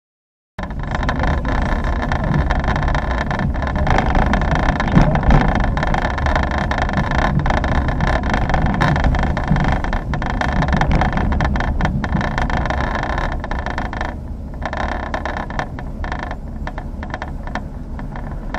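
Cabin noise of a police patrol car driving: a steady engine and road-noise rumble with frequent small rattles and clicks from the interior.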